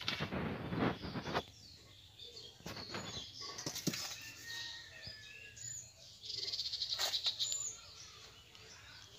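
A steel spoon scraping and scooping rice flour in a stainless-steel bowl, in several bursts of rasping scrapes, the loudest right at the start, with a few light clinks of metal on metal.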